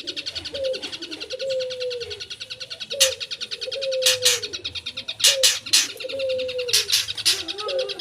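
Long-tailed shrike (cendet) singing a fast, chattering song, packed with mimicked notes, broken by loud sharp high calls, singly and in pairs, from about three seconds in. Underneath, a low two-note phrase repeats about once a second.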